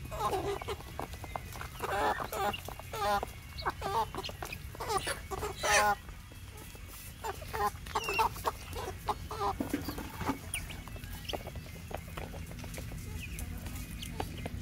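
Chickens clucking, a quick run of short, wavering calls that is busiest in the first six seconds and thins out after about ten seconds, over a steady low hum.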